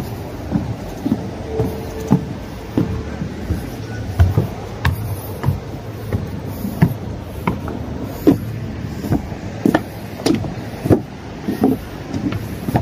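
Footsteps at walking pace, about two thumps a second, over a steady low rumble.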